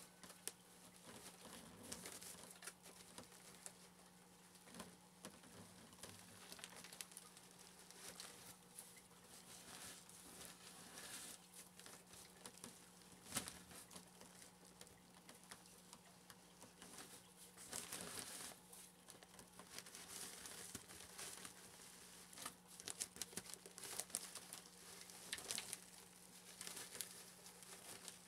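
Aspen wood shavings being shaken out of a plastic bag into a glass tank: faint, irregular rustling and crinkling with scattered small ticks, busier in the second half.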